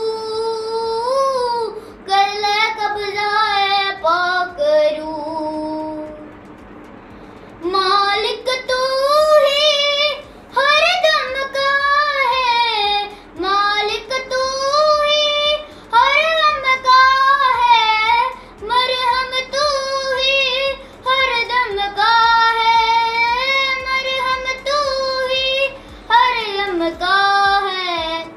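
A young girl singing a devotional song solo, holding and bending long melodic notes, with a pause of about two seconds around six seconds in.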